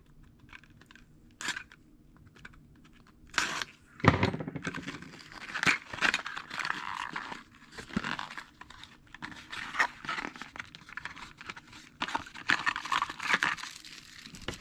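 Packaging of a precision screwdriver set being opened and handled: a few light clicks in the first seconds, then steady rustling and crinkling from about four seconds in.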